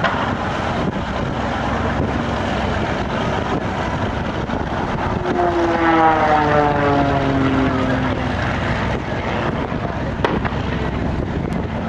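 Single-engine aerobatic propeller plane in flight, its engine and propeller note sliding steadily down in pitch for a few seconds around the middle. A constant rushing noise runs underneath.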